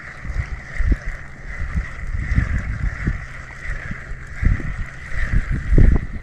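Water slapping against a small pontoon boat, with uneven low knocks and gusts on the microphone, under a steady, slightly wavering high-pitched whine.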